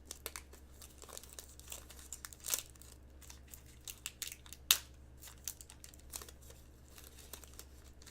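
A trading card pack wrapper being torn open and crinkled by hand: a scatter of sharp crackles, the loudest about four and a half seconds in.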